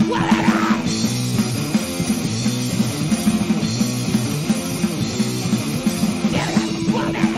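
Loud rock music. The texture shifts about a second in to a denser section with stepped chord changes, and the earlier pulsing riff comes back near the end.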